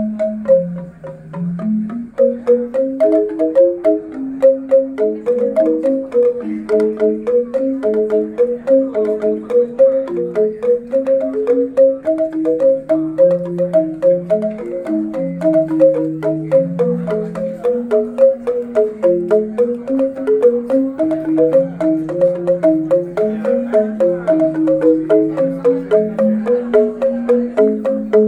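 Pair of Balinese bamboo xylophones (rindik) played with mallets: a lively, continuous melody of quick struck notes, a lower line moving slowly under a fast repeating upper figure.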